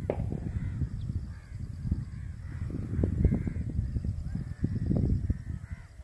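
Birds calling over and over with short, arching cries, over a loud, uneven low rumble of wind on the microphone.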